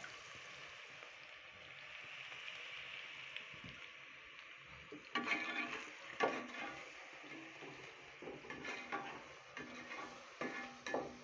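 Onions and garlic sizzling in hot oil in a metal pot. From about five seconds in, a spatula scrapes and knocks against the pot in short strokes as the mixture is stirred.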